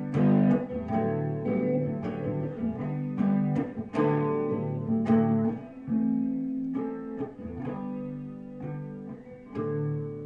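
Acoustic guitar playing an instrumental passage, notes plucked or strummed in a steady rhythm with chords ringing on, no singing.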